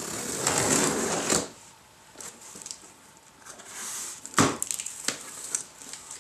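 Utility knife slicing through the packing tape along a cardboard box's edge: a loud rough rasp for about a second and a half. Then quieter scraping of cardboard and a sharp knock about four and a half seconds in as the box's lid is worked open.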